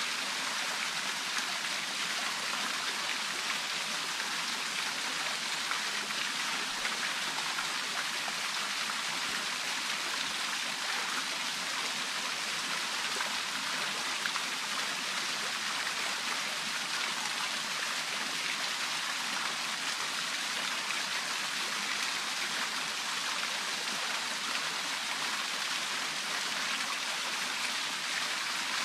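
Small waterfall pouring down a stone wall and splashing into a creek pool: a steady, even rush of falling water.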